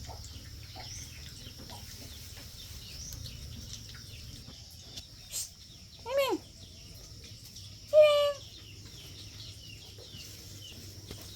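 Chickens calling on a farm: two short pitched calls about two seconds apart, over a background of small birds chirping and a steady high insect-like hiss.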